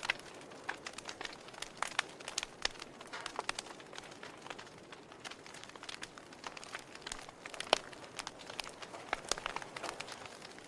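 Wood fire in a fireplace crackling, with irregular sharp pops and snaps over a soft steady hiss; one loud pop about three-quarters of the way through.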